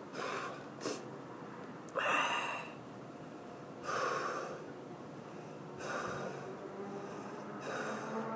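A man breathing hard through mouth and nose, a loud breath about every two seconds, the loudest about two seconds in: his reaction to the burn of 13-million-Scoville chilli extract.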